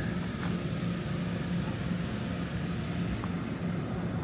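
Diesel locomotive idling at a distance: a steady low hum with a faint, uneven pulsing tone.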